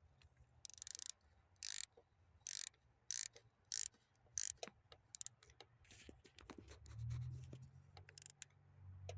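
12 mm ratchet wrench clicking in repeated back-and-forth swings as it tightens the nut on a battery cable terminal clamp, about seven rasping strokes followed by a run of quicker, lighter clicks.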